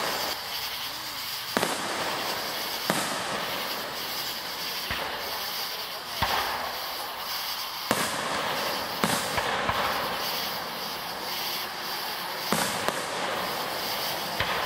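Aerial fireworks shells bursting: about ten sharp booms at uneven intervals, some in quick pairs and triplets, over a steady background hiss.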